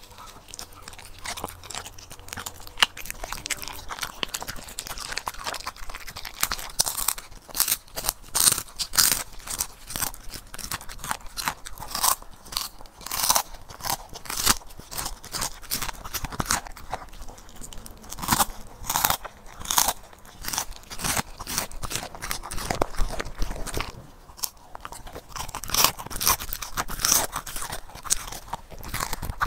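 A corgi chewing and crunching hand-fed horse mackerel: a dense, irregular run of sharp crunches that gets busier after the first few seconds.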